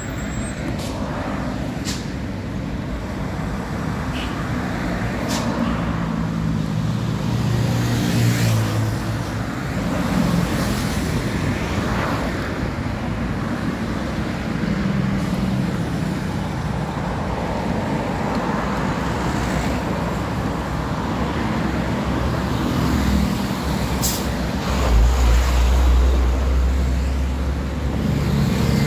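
Steady highway traffic, with cars, trucks and buses passing and their engines and tyres making a constant rushing noise. A heavy vehicle's deep engine rumble swells about 25 seconds in and is the loudest part.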